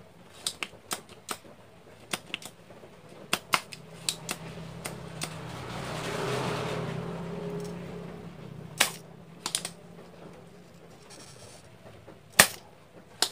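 Scattered sharp clicks and taps of a soldering iron and a spring-loaded desoldering pump working on a TV circuit board while the B+ line is desoldered. The pump fires with a single loud snap near the end. In the middle a low hum with a hiss swells up and fades away.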